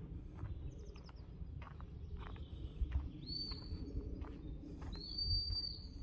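A bird whistling two long, even high notes in the second half, over footsteps on a dirt forest path and a low rumble of wind and handling on the microphone.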